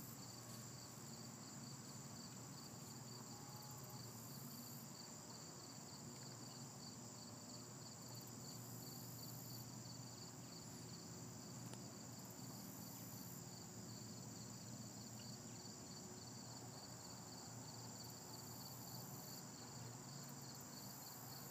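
Faint steady chorus of insects, a high chirp pulsing several times a second over a steadier high trill.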